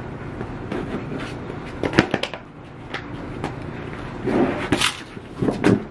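Rubber-backed coir doormat being handled on a concrete porch: a few sharp slaps about two seconds in, then a scraping rustle as it is dragged into place, and a few more knocks near the end.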